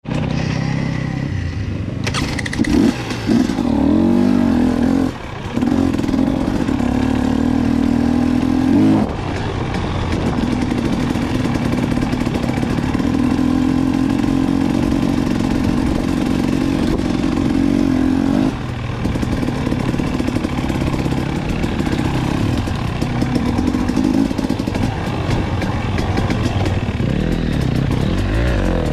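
Dirt bike engines running and revving, the pitch rising and falling with the throttle, with a couple of brief drops in level.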